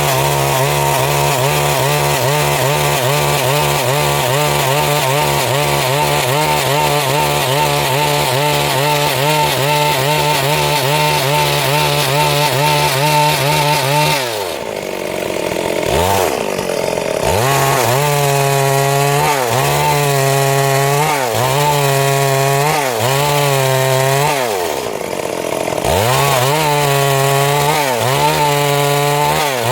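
Chainsaw running at high revs as it cuts through wood, its pitch wavering about once a second under the load of the cut. Twice, about halfway through and again near the end, the engine drops back toward idle and then revs up again.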